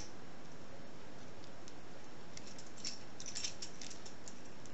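Small, light clicks and taps of a lock and its long key being handled, scattered and bunched a little past halfway, over a steady background hiss.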